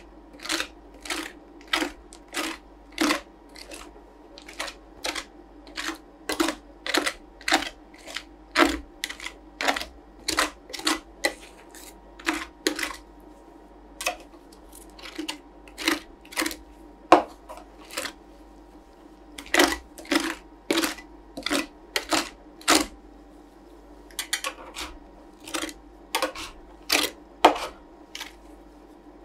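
Metal spatulas striking and scraping a roll ice cream machine's steel freezing plate as the frozen mix is spread and chopped: a run of short, sharp taps about one to two a second, pausing briefly twice, over a faint steady hum.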